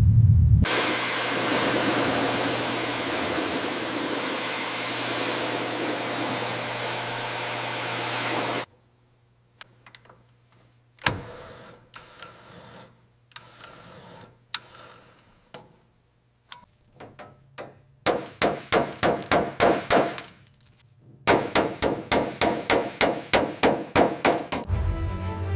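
Workshop tool sounds: a steady power-tool run for about eight seconds that cuts off, then scattered knocks and clinks, then two runs of rapid, even hammer strikes, about five a second.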